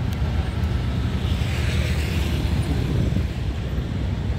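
Road traffic on a bridge: a steady low rumble of passing cars and motorcycles, with tyre hiss swelling in the middle.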